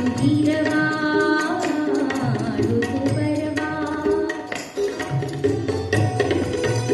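Live Indian vocal music: a man and a woman singing a melodic line over rhythmic hand-drum accompaniment. The singing drops out near the end while the accompaniment plays on.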